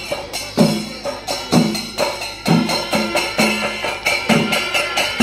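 Kerala chenda melam: chenda drums and ilathalam cymbals playing a steady rhythm of loud strikes, about two a second, with metallic cymbal clashes ringing over the drum beats.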